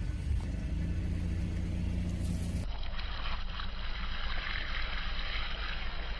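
A car engine running at low, steady revs with a low rumble and no crunching. About two and a half seconds in, the sound changes abruptly, as at a splice between two takes.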